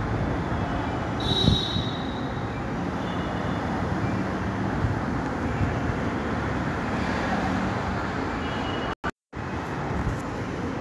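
Steady low noise, with a brief cut to silence about nine seconds in.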